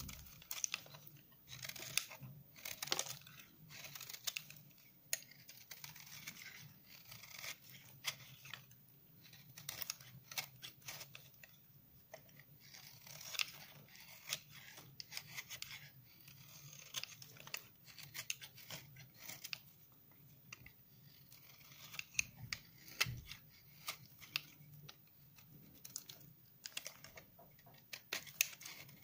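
A snap-off utility knife blade shaving curls off a hard, nine-month-dried bar of 72% laundry soap: irregular strokes of crunchy scraping, each made of many small crackles. A faint steady low hum lies underneath.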